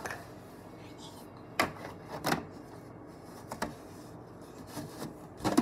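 Kitchen handling noise: about four short, sharp knocks and clicks, spread a second or so apart, as things are moved and set down.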